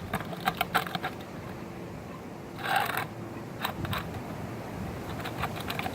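Wet towel scrubbing the grimy metal housing of a ceiling fan motor: scattered rubbing and scraping strokes with small clicks, and a short louder rub near the middle.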